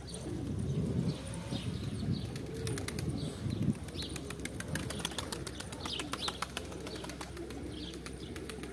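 A flock of Van tumbler pigeons cooing on the ground, with wings flapping and clapping as birds take off.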